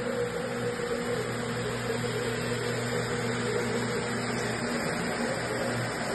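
Single-disc rotary floor machine running with its pad spinning on carpet: a steady electric-motor hum.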